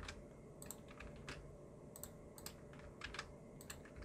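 Faint clicks of computer keyboard keys and a mouse, about ten separate taps at an uneven pace, as Blender shortcuts are entered.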